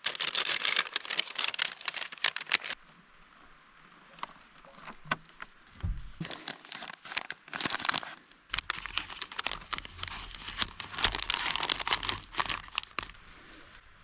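Plastic MRE pouches and the flameless ration heater bag crinkling and rustling as they are handled, in two longer bouts near the start and from about the middle to near the end, with scattered crackles in between.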